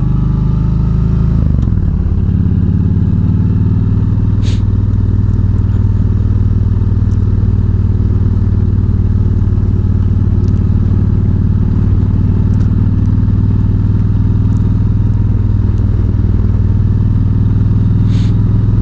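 Yamaha V-Star 1300's V-twin engine running at a steady cruise on the road, its pitch shifting in the first couple of seconds before holding even. Two or three brief sharp clicks.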